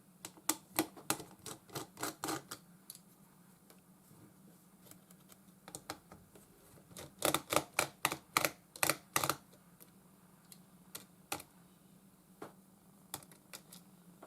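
Quick small clicks from a screwdriver working the laptop's motherboard screws, in two runs of about ten clicks, the first starting about half a second in and the second about seven seconds in, with scattered single clicks between and after. A faint steady hum lies underneath.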